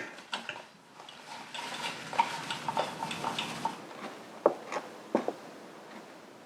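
Metal tools and parts clinking and knocking as they are handled, with a run of light ringing clinks followed by a few sharper knocks.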